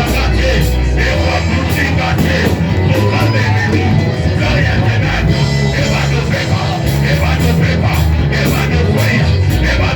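Loud band music with heavy sustained bass notes and regular drum hits.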